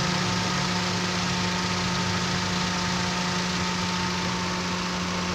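Toyota Avanza engine idling steadily with the air-conditioning compressor running, a constant hum with a steady whine above it.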